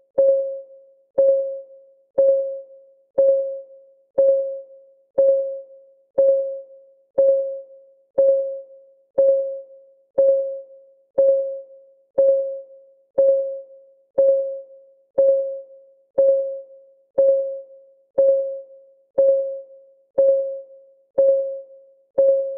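Countdown timer's clock-ticking sound: one tick each second, evenly spaced. Each tick is a soft click carrying a single mid-pitched tone that dies away within about half a second, like a struck note.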